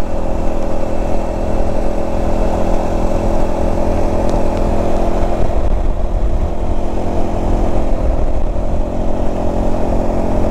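A vehicle engine running at a steady cruising speed, its note holding level, under a loud, heavy wind rumble on the microphone.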